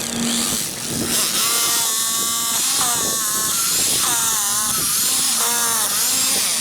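Cordless drill driver whirring in several runs, its pitch rising and falling with the trigger as it drives screws.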